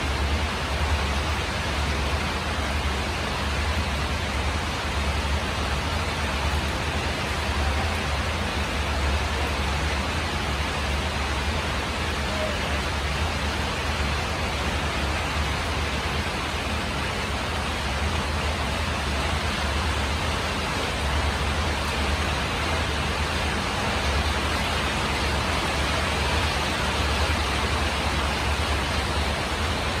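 Steady rain drumming on a tin roof, an even hiss with no breaks, over a low rumble.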